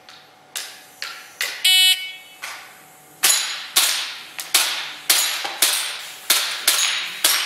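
Shot-timer start beep, then about a second and a half later a rapid string of about ten airsoft pistol shots and clanging hits on steel plates over roughly four seconds, some of them ringing.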